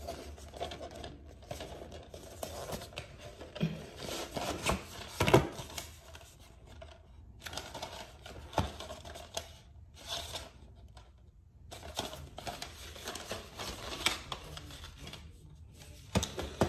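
DVD box set packaging being handled: a cardboard slipcase slid off and a fold-out disc tray opened, giving scattered rustles, scrapes and light clicks of card and plastic.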